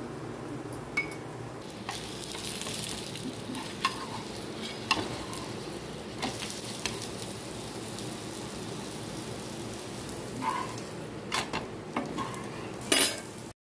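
Rice-flour flatbread (sarvapindi) sizzling on an iron tawa, with a metal spatula scraping and tapping against the pan as the bread is pressed and flipped. The scrapes come at irregular intervals, the loudest near the end.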